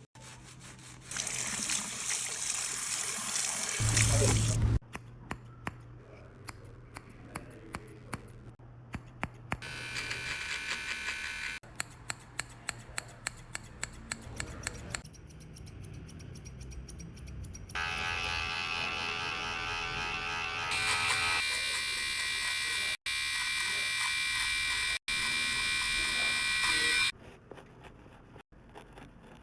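A run of men's haircut sounds at close range: a spraying hiss, then scissors snipping in quick runs of sharp clicks, then electric hair clippers buzzing steadily for several seconds at a time.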